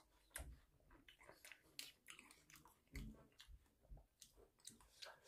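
Faint, close-up mouth sounds of eating a spoonful of a soft, creamy dish: quiet chewing with scattered small wet clicks and lip smacks.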